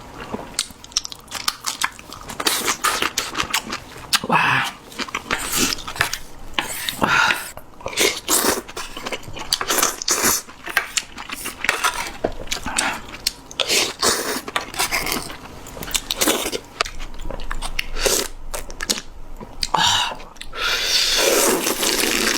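Close-miked mouth sounds of someone eating seafood ramen: irregular chewing and biting. A longer noisy stretch comes near the end.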